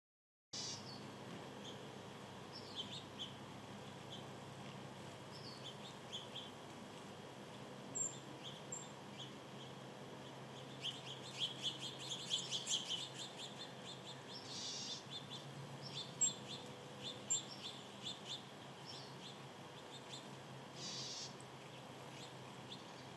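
Small birds chirping, faint: scattered short high chirps, with a fast run of twittering chirps about halfway through and two brief hissy bursts later on.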